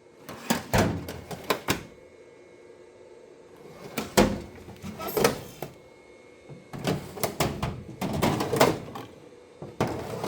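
Tool box drawers being pulled open and pushed shut: three spells of clunks and rattles, each a second or so long, with quieter gaps between.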